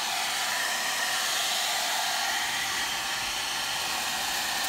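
Hand-held hair dryer blowing steadily at one speed, drying freshly applied leather paint on a car seat.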